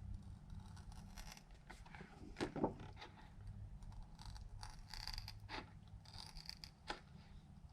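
Thin clear Lexan polycarbonate sheet being cut by hand: a series of short, irregular scraping and cutting strokes, the loudest about two and a half seconds in, over a low steady hum.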